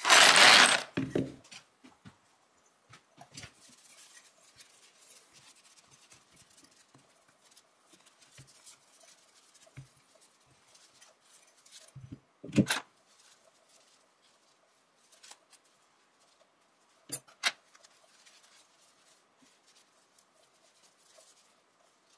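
Steel rifle trigger parts clattering in a plastic parts tray as the trigger housing is lifted out, followed by faint rubbing of a cloth over the metal parts to wipe off loose dirt and grease. Two sharp knocks of metal on the bench, about halfway through and again a few seconds later.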